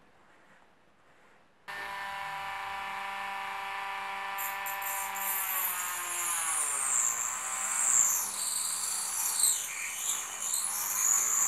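A handheld rotary tool starts up about two seconds in and runs with a steady whine. From about four seconds its thin cutoff disc grinds into a clear plastic dome with a high hiss, and the motor's pitch drops under the load, picking up again near the end.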